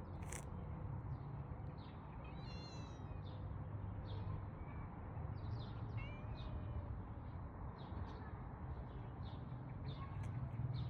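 A cat meowing twice: a high, thin meow about two seconds in and a shorter one around six seconds, over a steady low rumble.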